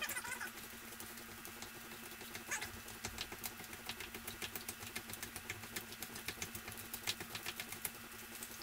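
A spoon stirring a thick taco dip in a plastic bowl: a run of quick clicks and squelches as it works through the mixture. A short falling squeak comes at the start and again about two and a half seconds in.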